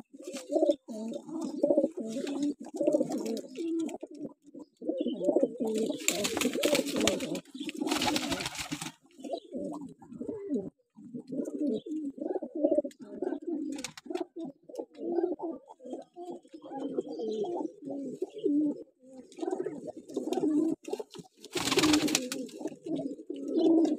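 A flock of domestic lowflyer pigeons cooing continuously, many overlapping low coos. Three short bursts of rustling noise break in, twice close together and once near the end.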